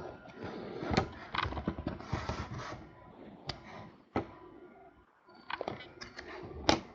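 Trading cards being handled and flipped through, with irregular clicks and short rustles as cards are slid and set down.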